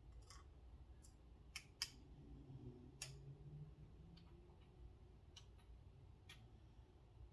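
Faint, scattered small clicks and taps of small knife parts and a driver being handled during pocket-knife reassembly, about seven irregular ticks with the sharpest near two seconds in.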